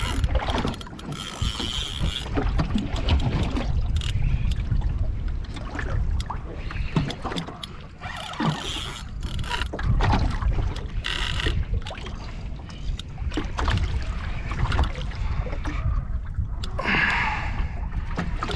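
Wind buffeting the microphone and water slapping against a small boat's hull, a steady low rumble with scattered knocks and brief splashy rushes.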